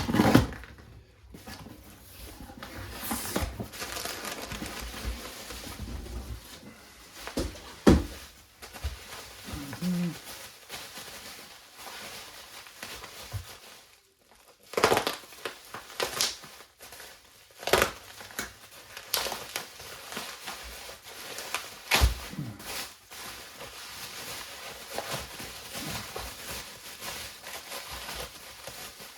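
Packaging being unwrapped by hand: wrapping crinkling and tearing, with several sharp knocks and clicks as the package is handled.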